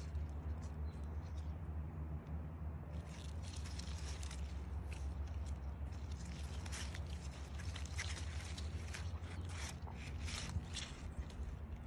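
Leaves and stems rustling and crackling close to the microphone as a hand brushes through the plants. It comes as a run of short, crisp crackles over a steady low rumble.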